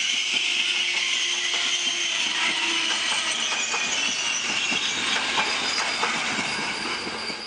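Trenitalia passenger coaches rolling past at speed: a steady rush of wheel-on-rail noise with scattered clicks from the wheels running over the rail joints, easing off as the last coach goes by near the end.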